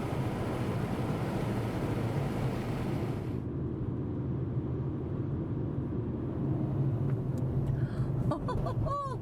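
Car on the road: a steady low rumble of engine and tyre noise while driving.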